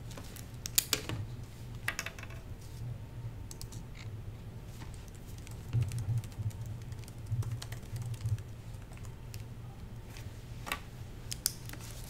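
Typing on a laptop keyboard: irregular key clicks with a few louder taps, over a steady low hum.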